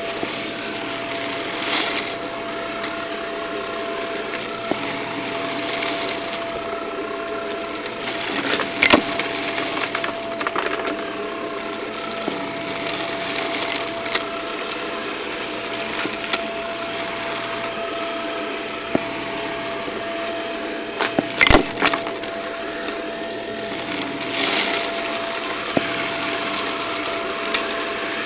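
Vacuum cleaner running with a steady whine while it sucks up a crunchy mess, crackling and clicking as the debris is pulled in, with a few sharp cracks about nine seconds in and again around twenty-one seconds.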